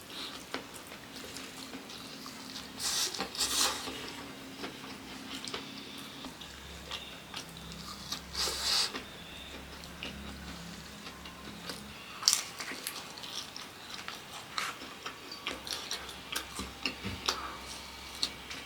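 A person eating close to the microphone: wet chewing and mouth smacks throughout, with louder crunchy bites about three seconds in and again around eight seconds, and a sharp click near the middle.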